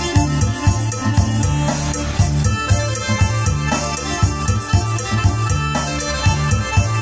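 Yamaha PSR-2100 arranger keyboard playing: a melody on the keys over its automatic accompaniment of steady drum beat and bass.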